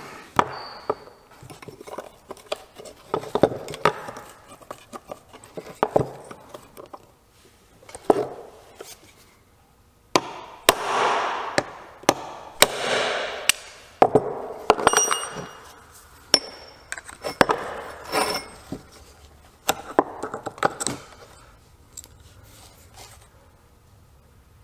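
Metal hand tools and knife parts clinking and knocking on a workbench, with a few longer stretches of scraping in the middle, as a knife's corroded pommel and stacked-leather handle are worked apart.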